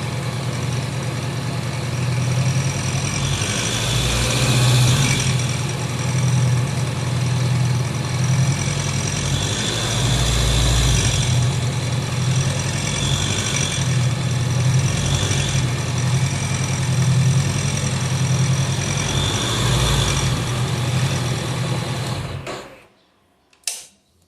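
Honda CB 500X parallel-twin engine running steadily, with a mechanical noise from the top of the engine like something knocking. The owner traces this to a loose crankcase breather hose and a loose bolt on the cylinder head, which let the engine's working noise out through the breather hole. The engine sound stops abruptly near the end.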